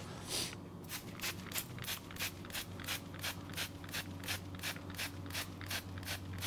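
Rapid, regular short hissing sprays, about four a second, of melted cocoa butter from a makeshift hand sprayer onto frozen mousse, building a velvet finish. A steady low hum runs underneath.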